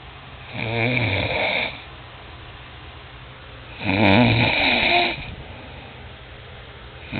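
A man snoring: two loud snores about three seconds apart, each lasting about a second, with a wavering rattle in them.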